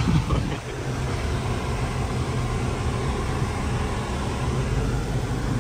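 Engine and tyre rumble heard inside the cab of a 2023 Chevy Colorado Z71 driving a dirt trail, its 2.7-litre turbocharged four-cylinder running steadily.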